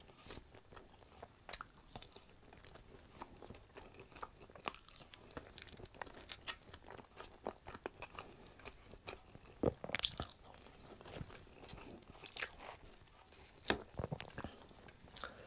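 Close-miked mouth sounds of someone eating potato wedges: irregular crunches and clicks of biting and chewing. The loudest bites come about ten seconds in and again near fourteen seconds.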